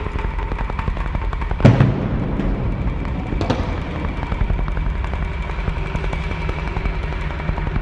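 Percussion ensemble playing a contemporary piece: a dense run of quick drum strokes over a low timpani and drum rumble, with a loud low drum hit about two seconds in and a lighter accent about a second and a half later.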